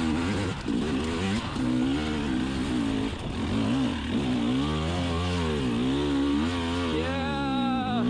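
2020 KTM 300 XC TPI's fuel-injected two-stroke single revving up and down under load on a hill climb in third gear, its pitch rising and falling over and over as the throttle is worked. It revs higher near the end.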